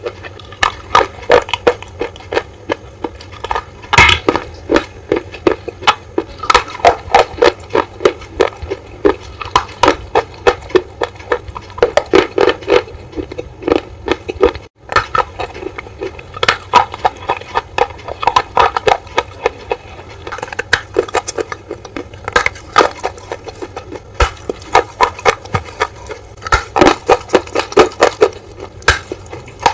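Close-miked biting and crunching into hard, brittle bars: runs of sharp, loud crunches several to the second, in clusters separated by short pauses. The sound cuts out for an instant about 15 s in.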